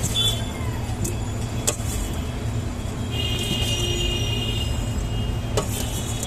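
Street traffic: a steady engine hum with scattered clicks and knocks, and a high, ringing tone for about a second, a little past the middle.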